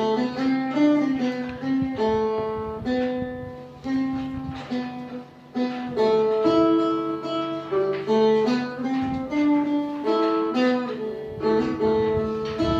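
Phin, the Thai Isan plucked lute, playing a melody of quick picked notes over a steady low drone.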